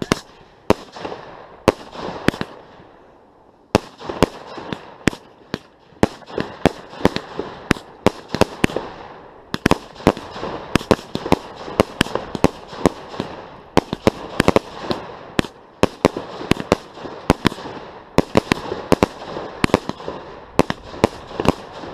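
Display fireworks going off close by: an irregular string of sharp bangs and cracks, several a second, with a short lull a couple of seconds in before the cracking picks up again and keeps going.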